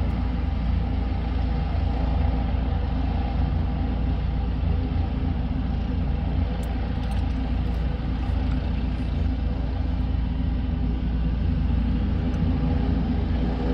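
Air ambulance helicopter running on the ground during start-up and warm-up: a loud, steady low rumble with a constant hum over it.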